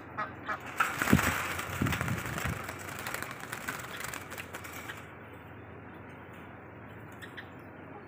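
Caged spotted doves making a few low, rough calls, mostly in the first two or three seconds, over several seconds of louder noisy rustling and clicks.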